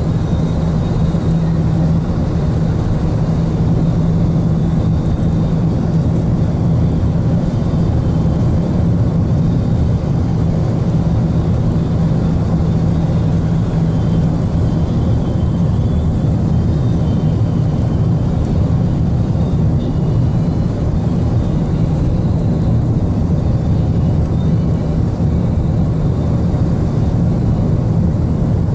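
Car cabin noise at steady road speed: a steady low engine drone and tyre rumble, heard from inside the car, with a steady hum that is strongest in the first half.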